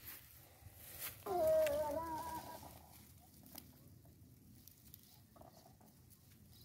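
A chicken calling once, a pitched call about a second long that dips slightly in pitch, about a second in. A few faint clicks come before and after it.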